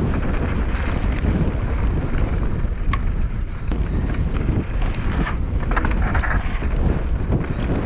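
Strong wind buffeting a GoPro Hero 8 Black's microphone as a mountain bike rides down a dirt trail, with scattered clicks and rattles from the tyres and bike over the ground.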